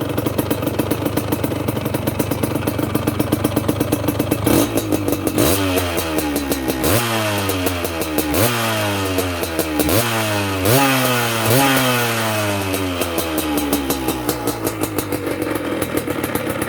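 Calima 175 motorcycle exhaust through a Kimoto Superbike aftermarket muffler, idling with an even pulse. From about five seconds in the throttle is blipped about six times, each rev rising quickly and sliding back down, before it settles back to idle.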